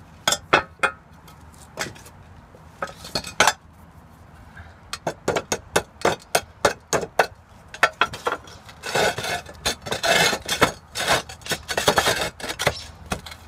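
Sharp hammer taps and clinks on roof tiles and a metal tile-foot bracket, as the underside of a tile is chipped to clear the bracket. In the second half the knocks crowd together with scraping and rattling as tiles and a metal mounting rail are shifted into place.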